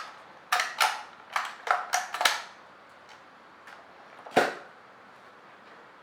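Yorfan F160 fingerprint glass door lock being worked by hand: a run of about seven quick, sharp mechanical clicks in the first two and a half seconds, then a single heavier knock about four and a half seconds in.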